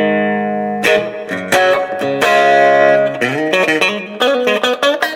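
Fender Stratocaster electric guitar played through a hand-built Fender blackface Vibrolux Reverb clone amplifier: a couple of ringing strummed chords, a bent note about three seconds in, then a run of quick picked notes.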